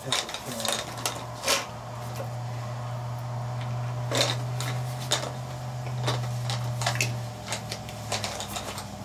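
Scattered clinks and knocks of small tools being picked up and handled, with a glass jar among them, over a steady low hum that drops away about seven seconds in.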